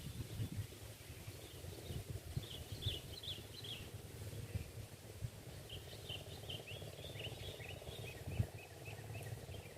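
Small birds chirping in quick runs of short high notes, in two bouts: about two seconds in and again from about six seconds. A low rumble of outdoor background noise runs underneath.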